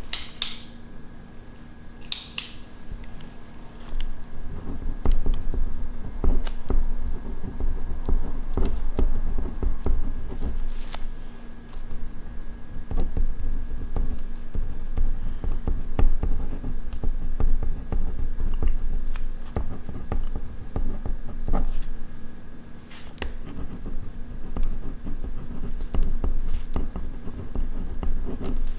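Ballpoint pen writing on paper, close to the microphone: continuous scratching strokes with small clicks and taps, over a faint steady hum.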